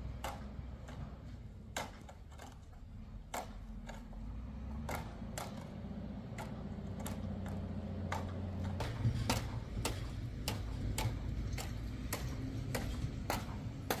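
Footsteps crunching in packed snow at a steady walking pace, about two steps a second, over a low rumble.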